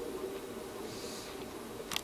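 1995 Sharp Comfort Touch 10,500 BTU window air conditioner running on high: a steady hum from the fan motor, running on freshly replaced bearings, and the compressor, with faint refrigerant noise in the lines.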